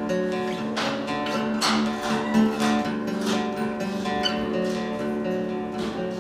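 Two acoustic guitars playing an instrumental passage together, strummed chords with repeated strokes.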